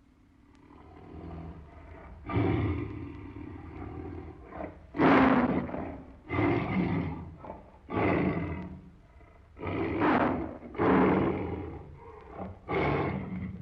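Tiger roaring in a series of about seven loud, rough calls, each about a second long and coming every second or two, after a quieter first couple of seconds.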